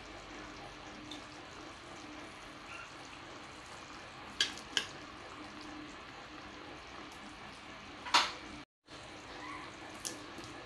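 Pork menudo sauce simmering in a wok with a steady soft bubbling hiss. A metal spoon clinks sharply against the pan a few times; the loudest clink comes about eight seconds in.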